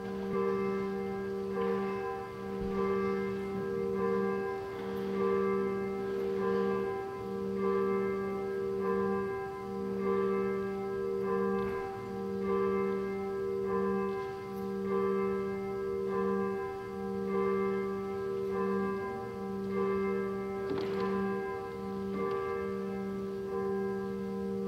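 Church bell ringing, struck about every two seconds, the strokes running together into a continuous ringing hum.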